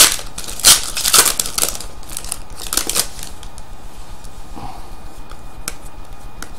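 Foil trading-card pack wrapper being torn open and crinkled in the hands, loudest in the first three seconds. Then quieter, with a few light clicks as the cards inside are handled.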